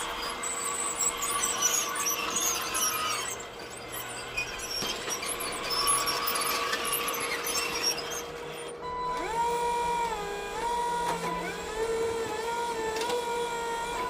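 1:8 scale radio-controlled excavator model working: a steady motor hum under scraping and hissing noise, then, a little past halfway, a whine that steps up and down in pitch as the motors change speed.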